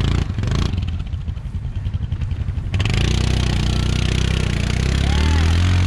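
ATV engine running unevenly with a few knocks, then throttled up hard about three seconds in and held at high revs under a rush of noise.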